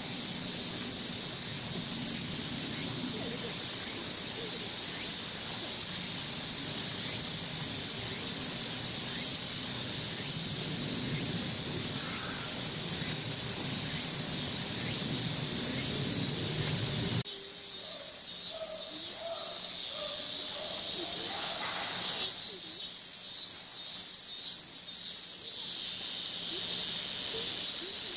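Cicadas singing: a dense, high-pitched hiss of summer insect song over a low background murmur. About seventeen seconds in, the murmur drops away and the cicada song turns into a pulsing rhythm of about two to three pulses a second.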